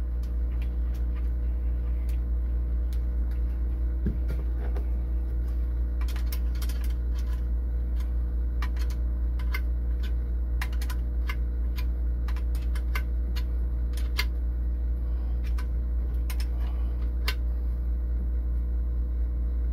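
A steady low machine hum throughout, with scattered small metallic clicks and taps, mostly from about six seconds in, as a ground-wire ring terminal and its nut are fitted by hand onto the alternator's terminal stud.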